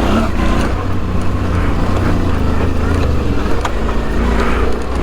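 Suzuki V-Strom 650's V-twin engine running steadily at low throttle through a Delkevic exhaust, heard from a microphone inside the rider's helmet. A few sharp rattling knocks come through over the engine.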